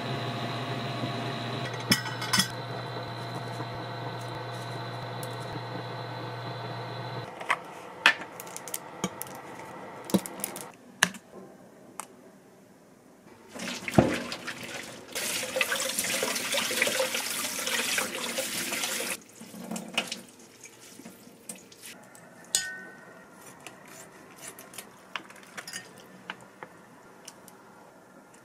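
Kitchen work sounds. A steady appliance hum with a high tone cuts off after about seven seconds. Then come scattered clicks and clinks of dishes and utensils, with a water tap running for about five seconds in the middle.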